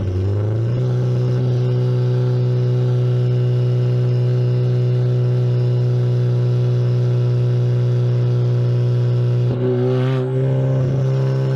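Mazda Miata four-cylinder engine running, heard at its exhaust: the pitch rises in the first second, then holds steady, with a brief wavering and a click near the end. The engine is smoking from failed valve stem seals.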